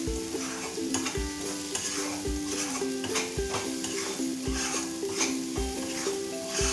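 Flat spatula stirring and scraping thick red chilli paste around a non-stick kadai in repeated strokes while it sizzles in oil. Soft background music with a steady beat plays underneath.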